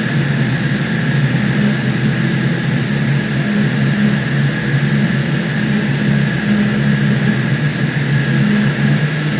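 1300-ton centrifugal chiller's compressor running with a loud, steady roar, a high whine above it and a low rumble that wavers. The chiller is in surge.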